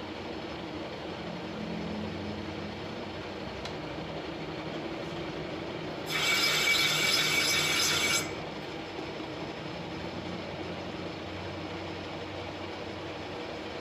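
Workshop machine running steadily with a low hum. About six seconds in, a loud, harsh, high-pitched sound lasts about two seconds and then cuts off suddenly.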